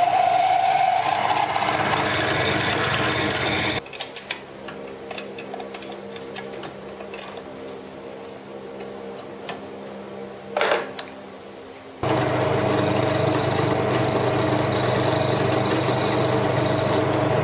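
Small metal lathe's electric motor and drive running with a steady hum. About four seconds in it gives way to a quieter stretch of scattered metallic clicks and a knock from handling the tailstock and tools. Some eight seconds later the steady running returns.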